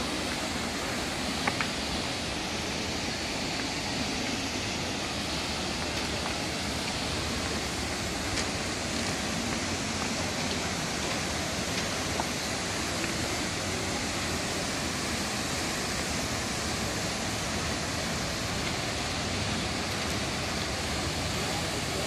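Waterfall plunging into its pool: a steady, even rush of falling water that does not change.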